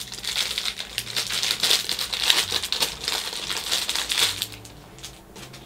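Packaging crinkling and rustling as a small pack of flashcards is unwrapped by hand, dying down about four and a half seconds in.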